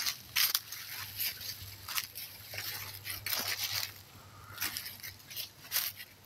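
Footsteps crunching through dry fallen leaves, an irregular string of short crackles about one to two a second.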